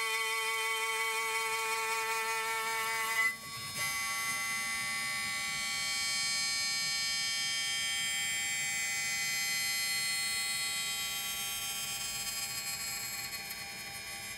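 CNC mill's end mill skimming the side of thin-walled aluminium box section: a steady high ringing whine with many overtones, the chatter of the open section, which is supported only at its ends. The pitch pattern changes abruptly about three seconds in.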